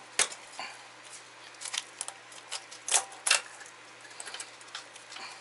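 Irregular light metallic clicks and clinks of hand tools and parts as a motorcycle's rear wheel is taken apart, about a dozen scattered ticks with a louder cluster around the middle.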